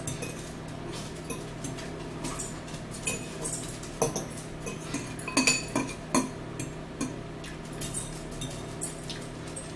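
Metal forks clinking and scraping against bowls as two people eat noodles, in scattered light clinks, over a steady low hum.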